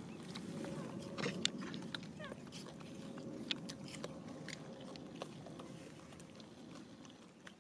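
Macaque chewing and biting fruit at close range: irregular short wet clicks and smacks.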